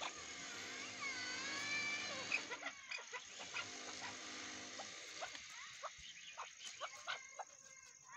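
Chukar partridge calling: a drawn-out, wavering call over the first three seconds, then a string of short clicks and brief soft notes.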